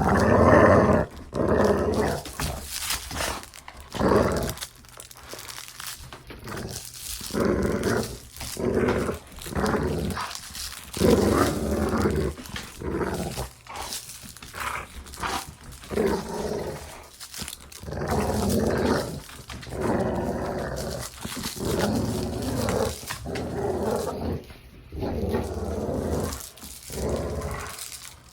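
Dog play-growling: a string of growls in short bursts, one every second or two.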